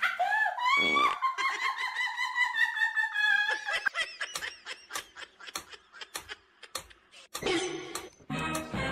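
High, wavering laughter, then a mechanical pendulum metronome ticking evenly at about two and a half ticks a second.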